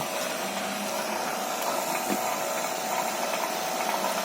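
Refrigeration vacuum pump running steadily with an even hum, evacuating a split-type air conditioner's refrigerant lines before it is recharged with refrigerant.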